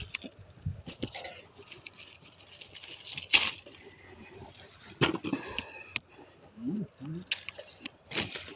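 Scattered rustling and sharp clicks and knocks from a handheld phone being carried through long grass. The loudest click comes about three and a half seconds in.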